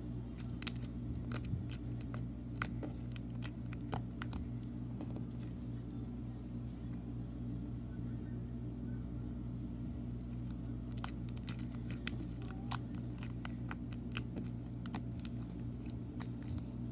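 White slime being stretched, folded and squished by hand, giving scattered small clicks and crackles, clustered early and again near the end, over a steady low hum.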